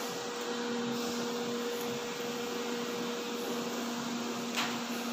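Steady machine hum and hiss of background room noise, with two faint steady tones, one coming in about half a second in. A faint tap near the end.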